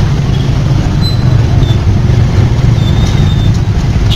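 Loud, steady low rumble of a motorbike riding in heavy street traffic: its engine and the vehicles around it. Faint short high squeals come about a second in and again around three seconds.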